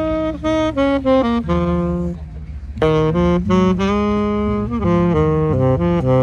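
Tenor saxophone playing a jazz melody live, with a brief break about two seconds in, over a low bass-line accompaniment.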